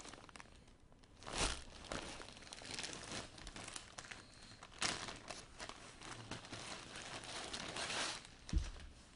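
Plastic packaging crinkling and rustling as it is handled and pulled open, with a few louder rustles and a low thump near the end.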